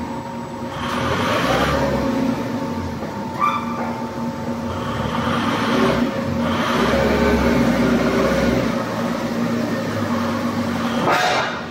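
Four-column hydraulic hot forging press running, its hydraulic pump giving a steady hum under a rougher, hissing machine noise that swells and dips. The punch is working a red-hot steel blank into half of a hollow metal ball.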